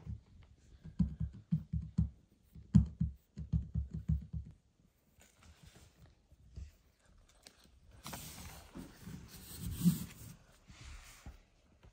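A cat purring in low rhythmic pulses for the first few seconds. Later, about three seconds of rustling as a hand strokes and works at the shedding mother cat's fur.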